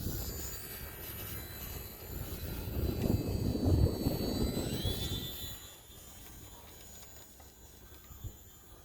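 The small electric motor and propeller of a HobbyZone Sport Cub S2 RC airplane whining in flight, the whine rising briefly in pitch about five seconds in. A loud low rumble of wind on the microphone peaks around three to five seconds in, then dies down.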